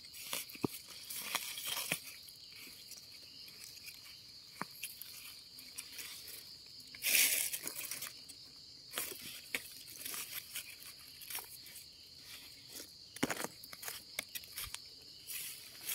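Dry leaves, twigs and soil rustling and crackling in irregular bursts as small termite mushrooms are dug out by hand and knife, the loudest crunch about seven seconds in. A steady high insect drone runs underneath.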